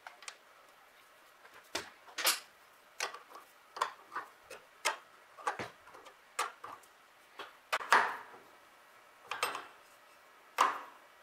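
Irregular light metallic clicks and taps as a fitting is handled and threaded into a mechanical fuel pump held in a bench vise, with tool-on-metal knocks. About a dozen separate clicks, a few of them sharper.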